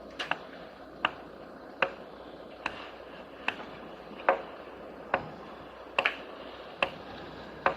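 Sharp knocks repeating at an even pace, about one every 0.85 seconds, ten in all, a few of them doubled.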